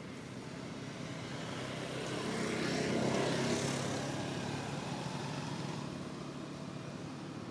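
An engine passing by, swelling to its loudest about three seconds in and then fading away.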